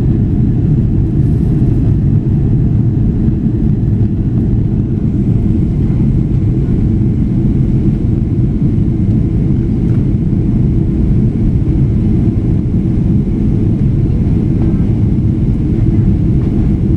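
Steady, deep cabin roar of a Boeing airliner climbing after takeoff: engine and airflow noise heard from inside the cabin at a window seat.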